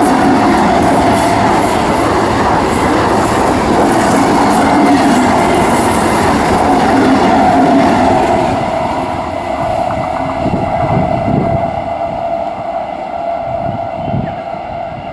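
Electric multiple unit local train running at speed, its wheels clattering on the track over a steady whining tone. The sound grows quieter and duller after about eight seconds.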